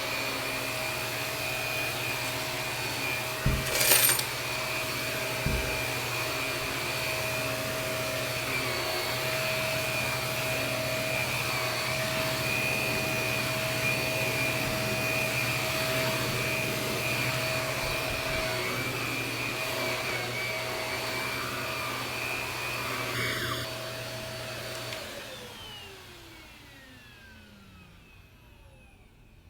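Shark vacuum cleaner motor running steadily, with a knock about four seconds in. It is switched off near the end, and the motor's whine falls away as it spins down.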